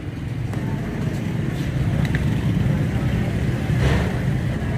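Open-air street market ambience: a steady low rumble of road traffic with indistinct voices in the background, and a brief louder rush of noise about four seconds in.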